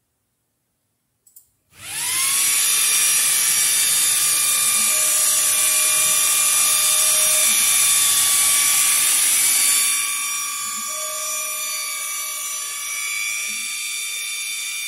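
xTool D1 Pro laser's gantry motors whining as the laser head travels around the outline of the job to frame it. The whine rises in pitch as the motion starts about two seconds in, drops in level partway through, and falls in pitch as it stops at the end.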